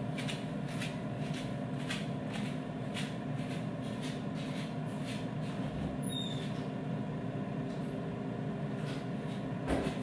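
Air fryer running: a steady fan hum with a light, regular ticking about two or three times a second.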